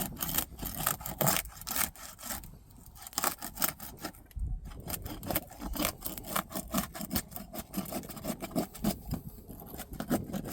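Old asphalt roof shingles being pried loose: an irregular run of scraping and rasping strokes as the sealed tabs are broken free, the brittle shingle tearing as it comes up.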